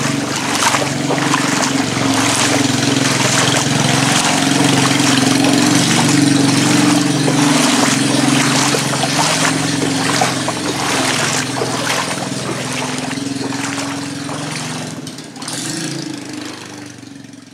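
Water splashing and sloshing as someone wades through shallow floodwater, over a steady low motor hum; the sound fades out near the end.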